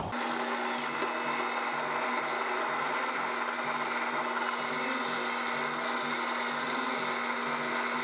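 Drill press running, its thin bit drilling into a metal pipe held in a vise: a steady motor hum with the scrape of the bit cutting metal.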